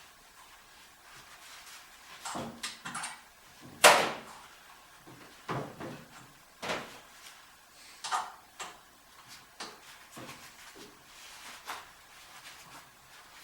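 Steel display rack being taken apart by hand: irregular metal clanks and knocks as parts and Allen wrenches are handled, about a dozen, with the loudest about four seconds in.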